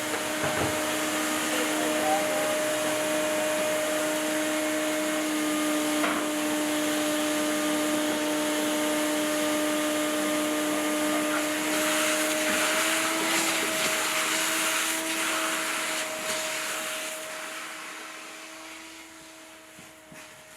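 Handheld electric abrasive power tool running with a steady whine, its disc working bare steel with a rough hiss; the whine dips slightly in pitch about two thirds of the way through as the rough noise grows, then fades near the end.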